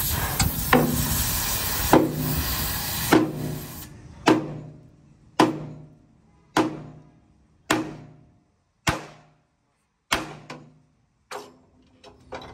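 Hammer blows driving rivets into a steel truck chassis, evenly spaced about once a second, each ringing briefly and dying away. A hiss fades out over the first few seconds.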